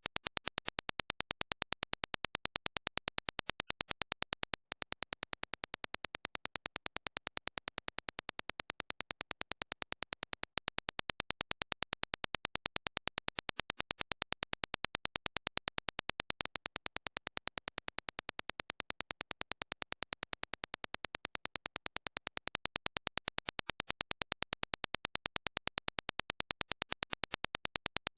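A rapid, evenly spaced train of sharp clicks: a Dirac impulse test signal for judging headphone transient speed. It plays in segments about six seconds long, split by brief gaps, with the level shifting slightly from one segment to the next.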